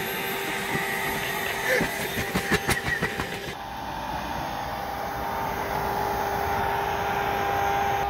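Built-in electric pump of an Aerobed air mattress running steadily, inflating the bed, with a few knocks from handling about two to three seconds in.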